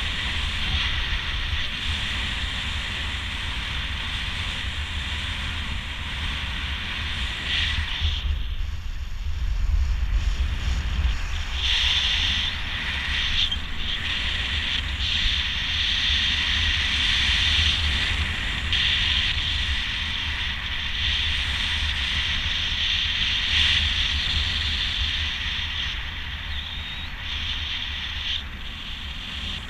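Wind rushing over the microphone in flight under a speedwing: steady low buffeting with a hiss on top. About eight seconds in, the hiss fades for a few seconds while the buffeting grows stronger.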